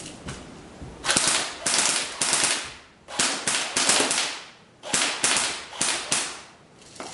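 Battery-powered Double Eagle M89P UMP-45 airsoft electric gun firing on full auto: three bursts of rapid clattering shots, each about a second and a half long.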